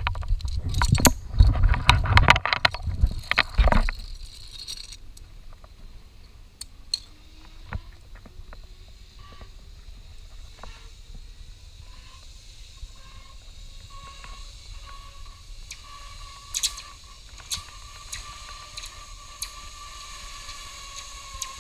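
Metal zipline gear clattering and knocking for a few seconds, then a zipline trolley's pulleys running along the steel cable: a faint whine that slowly rises in pitch as the rider gathers speed, levels off, and drops slightly near the end.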